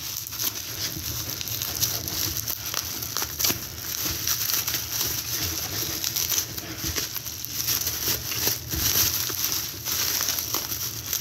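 Plastic bubble wrap crinkling and rustling continuously as hands unwrap a model train car from it, with many small crackles.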